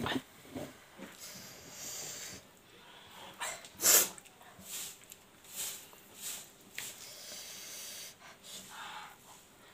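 Close-up eating sounds of a person eating rice by hand: chewing, lip smacks and noisy breaths come in short bursts, and the loudest comes about four seconds in.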